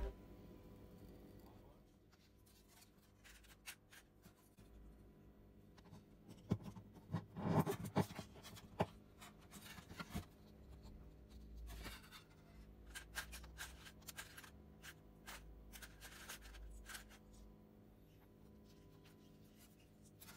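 Faint clicks, taps and rubbing as strings are fitted to an acoustic guitar, ball ends fed into the bridge and pins pushed in, with a denser run of louder clicks near the middle.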